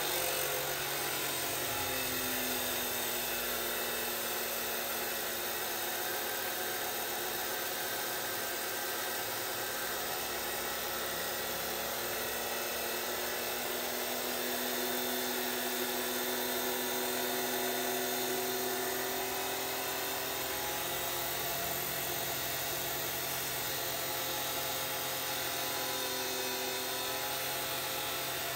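Laxton LX249 14-inch (355 mm) abrasive cut-off saw's motor running under load as its abrasive disc grinds through a 16 mm ribbed steel rebar, a steady whine with a grinding edge that wavers slightly in pitch.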